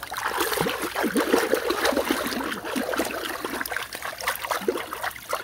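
Water splashing, trickling and gurgling in a shallow plastic kiddie pool stirred by a wet dog and a person sitting in it, a busy run of small splashes and drips.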